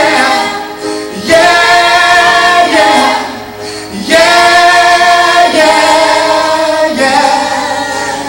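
Gospel choir singing long held notes, phrase after phrase, with short breaks between phrases.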